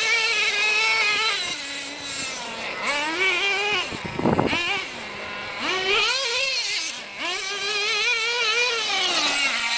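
Nitro engine of a Tamiya TNX 5.2 radio-controlled monster truck, a high-pitched whine revving up and down again and again as it is driven. A short rough rushing noise comes about four seconds in.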